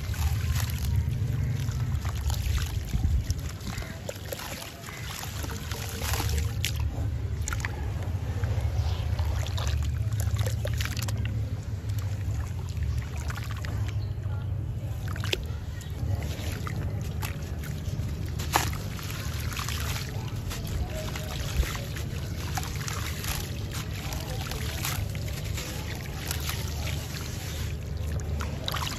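Wet sand-cement chunks crumbled and dipped by hand in a tub of water: gritty crackling, trickling and splashing as bits fall into the water, over a steady low rumble.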